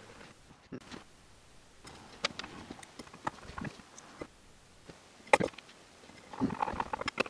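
Scattered light clicks and knocks of metal parts and a hex key being handled on a plywood workbench board, with a sharper knock about five seconds in and a short clatter near the end.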